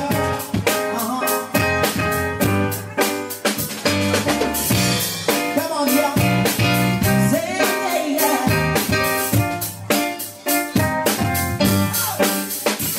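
Live band playing a pop song: keyboard chords over a drum kit beat, with a singer's voice on top.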